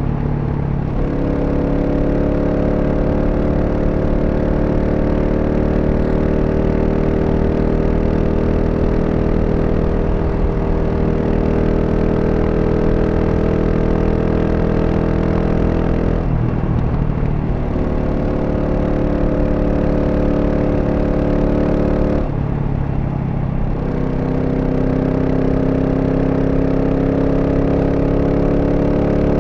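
2023 GasGas SM 700's single-cylinder engine through its stock exhaust, running at a steady cruising pace with the pitch drifting slowly up and down. The note breaks up briefly twice, about 16 and 22 seconds in, before settling again.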